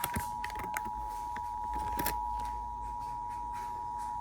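Emergency Alert System attention signal: two steady tones sounding together just below 1 kHz (the EAS pair of 853 and 960 Hz), held without a break.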